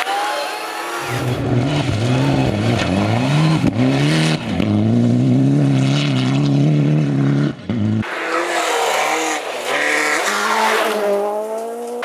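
Rally car engines run hard at full throttle, pitch climbing and dropping back with each gear change, over gravel and tyre noise. The sound changes abruptly about a second in and again about eight seconds in as one car's run gives way to another's.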